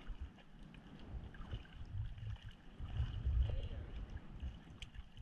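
Sea water lapping and sloshing around a floating surfboard, with irregular low rumbles of wind and water on the microphone.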